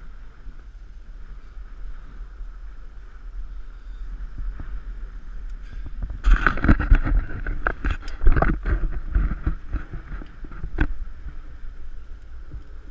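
Wind rumbling on the microphone over water lapping against the hull of a small open boat, with a louder stretch of noise and several knocks from about six to eleven seconds in.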